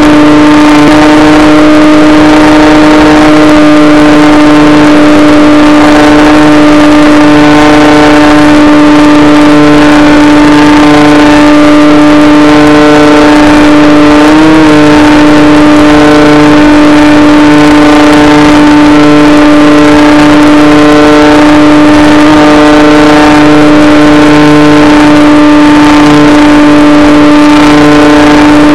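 Electric motor and propeller of an FPV RC plane running at steady part throttle: a loud, constant droning hum of one pitch, heard through the plane's onboard audio. About halfway through the pitch blips up briefly with a short throttle bump, and a faint on-off pulsing runs beneath the hum.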